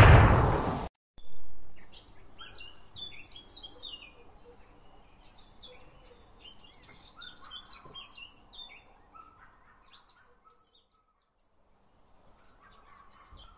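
A loud blast ends within the first second and a second, shorter blast follows. Then small birds chirp and twitter, fading out, with a few faint chirps near the end. These are stock sound effects marking battle giving way to peace.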